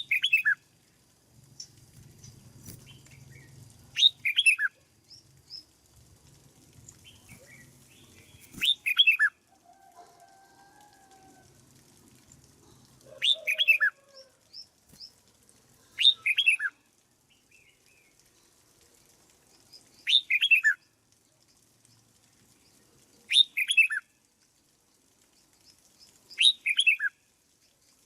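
Red-whiskered bulbul singing: short, bright phrases of three or four quick notes that fall in pitch, repeated about every three to four seconds.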